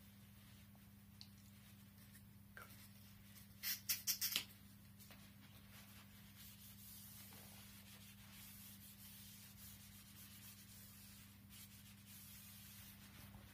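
A handheld applicator pad rubbed along the glide zone of a waxless cross-country ski's base, a soft steady scrubbing hiss. About four seconds in, a quick run of four or five sharp, louder scrapes. A faint steady electrical hum lies underneath.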